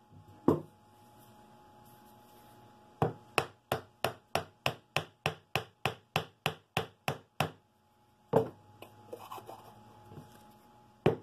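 Wooden mallet tapping a glued wooden pivot pin down into a wooden box lid: one knock about half a second in, then a quick, even run of about fifteen light taps at roughly three a second, and one more knock a little after eight seconds.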